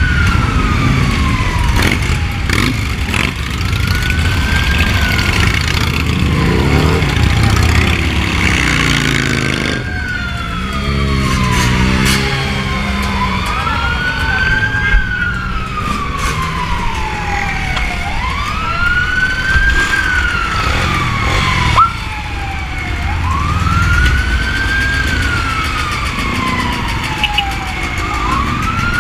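An emergency-vehicle siren wailing, each cycle rising quickly and falling slowly, about every five seconds, over the steady rumble of many motorcycle engines.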